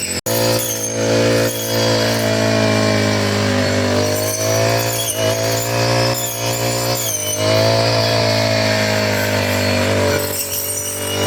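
Four-stroke brush cutter engine running at high speed while cutting grass, its pitch sagging and recovering a few times as the blade takes load.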